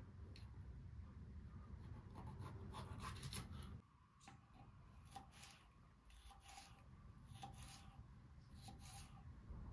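Faint, irregular rubbing and scraping strokes, typical of hands or a utensil working on a surface. A low background rumble cuts off abruptly about four seconds in.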